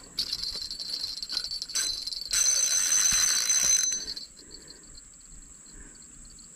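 Insects buzzing with high ringing tones. A louder, harsher buzz comes in about two seconds in and stops abruptly about four seconds in. A fainter pulsing insect chorus carries on after it.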